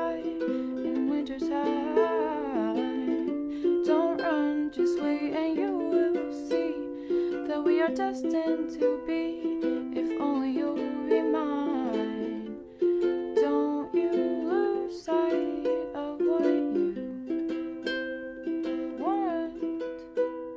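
Background music: a plucked-string accompaniment under a melody line that glides up and down in pitch.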